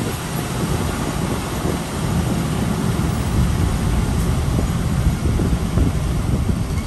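Passenger train coach rolling along the track: a steady rumble of wheels on rails, heard from an open window with wind noise on the microphone.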